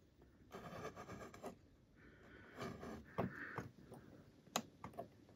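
Faint scraping and a few small sharp clicks of metal tweezers handling a tiny AirPods Pro replacement speaker on a metal work holder.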